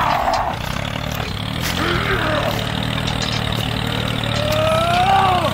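Tractor engine running steadily with a low drone. Near the end a whine glides up, then falls away.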